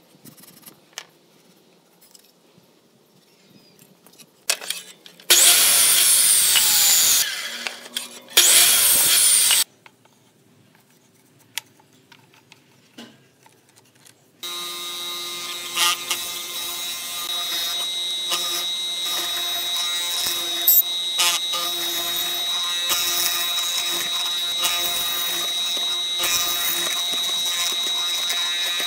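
Small taps and handling noises at first, then two loud bursts of a power tool, each a second or two long. About halfway through, a benchtop hollow-chisel mortiser starts and runs steadily with a high whine, its square chisel boring a mortise into a wooden board.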